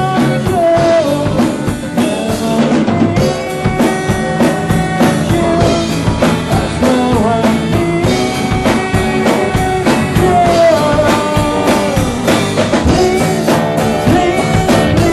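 Live rock band playing a song: a drum kit keeping a steady beat under guitars, with a wavering melodic line over the top.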